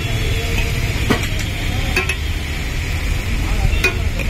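Red masala sauce sizzling on a large flat iron tawa, a steady hiss with a few sharp clicks, over a low steady rumble of street noise.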